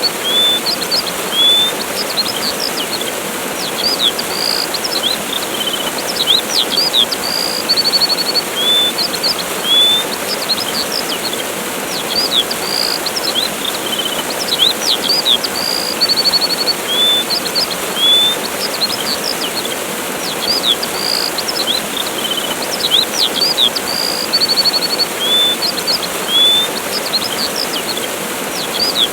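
Steady rush of a waterfall with small birds chirping and trilling over it, the same run of high calls coming round again about every nine to ten seconds.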